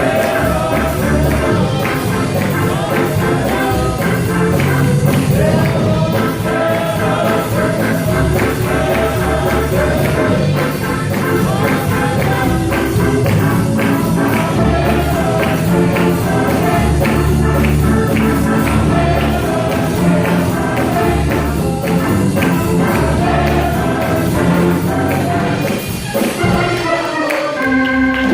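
Gospel music: voices singing over a band with a steady, busy percussion beat, dropping out briefly near the end.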